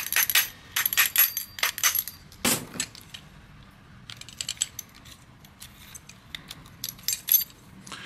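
Metallic clicks and clinks from a Brava Metro commercial knob lockset as the key is turned back and forth in its cylinder and the tight knob is forced back onto an oversized shaft. There is a quick run of clicks in the first three seconds, then a few more near the end.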